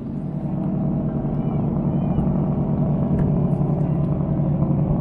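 Motorboat engine running steadily nearby, a low hum that grows a little louder in the first few seconds.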